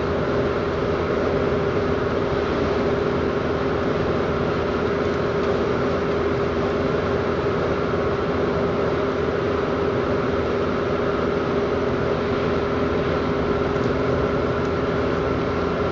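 Steady in-cabin noise of a Suzuki Baleno cruising at about 95 km/h: engine hum and road noise at an even, unchanging pitch.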